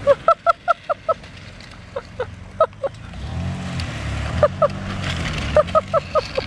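Runs of short, pitched calls, about five a second, come and go in quick bursts over a van engine that starts rising and falling about three seconds in.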